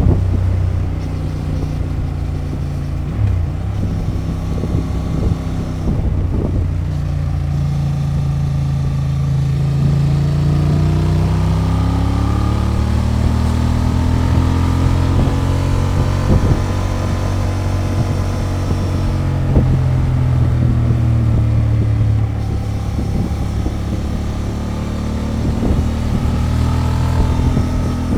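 Honda XL750 Transalp's 755 cc parallel-twin engine running through its stock exhaust on the move, its note slowly rising and falling as the throttle and speed change.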